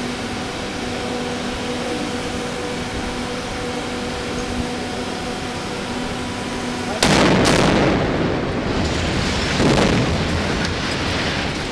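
Demolition explosive charges bringing down a concrete high-rise: two sharp blasts about half a second apart roughly seven seconds in, followed by the rumble of the tower collapsing, which swells again about two and a half seconds later. Before the blasts there is only a steady hum.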